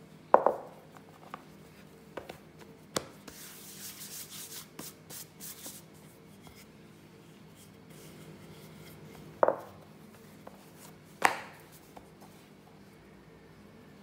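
Wooden rolling pin working folded puff pastry dough on a floured silicone mat: a few sharp knocks, two near the start and two late on, with a few seconds of rolling rub in between.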